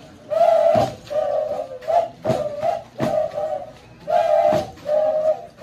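Several flutes played together by the dabucuri dancers, blowing a short phrase that repeats over and over, with low thuds in a steady beat about every three-quarters of a second.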